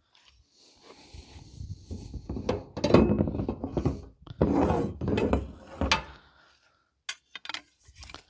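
Metal crossbars being pulled out of an IBC tote's cage: irregular scraping and rubbing of metal on metal, with several sharp clinks and knocks.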